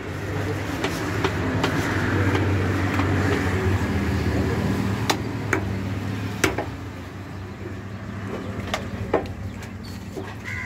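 A motor vehicle on the road, its engine hum building over a few seconds and then fading away as it passes, with scattered sharp knocks through it.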